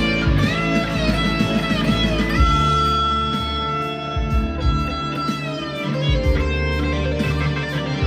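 PRS 245 electric guitar played through high-gain distortion at an up-tempo pace. It opens with a lead phrase of string bends, sustains one long held note from about two and a half to five and a half seconds in, then goes into fast picked notes.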